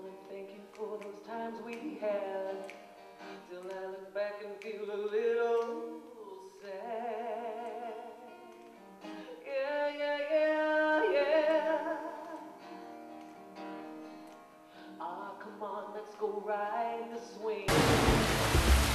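A woman singing with a strummed steel-string acoustic guitar, her held notes wavering. Near the end it cuts off abruptly into a loud rushing noise.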